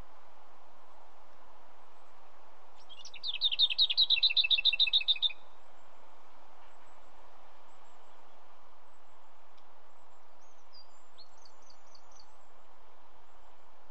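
Lesser whitethroat singing: one fast rattle of about a dozen identical notes on a single pitch, lasting about two and a half seconds, over a steady background hiss. A few faint, higher notes follow a few seconds later.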